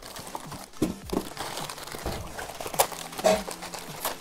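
Cardboard packaging being handled: rustling, scraping and irregular knocks as a wheel box's cardboard inserts are pulled out and moved, with a few sharper knocks.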